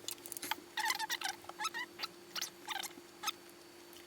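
A rapid series of short high-pitched chirps over a faint steady hum.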